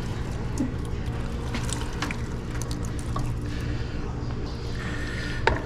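Drained penne being tipped into a pan of sauce and stirred: soft wet scraping with a few light clicks, over a steady low hum. There is a sharper click near the end.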